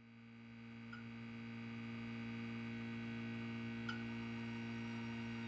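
Steady low hum made of several held pitches, swelling in over the first two seconds. Two faint ticks come about a second in and again near four seconds.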